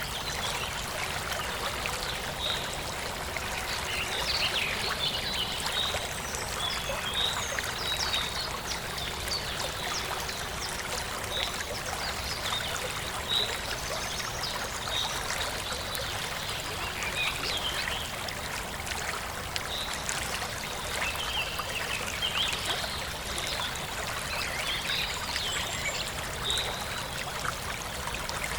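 Forest stream flowing and trickling steadily, with small birds chirping in short calls scattered throughout.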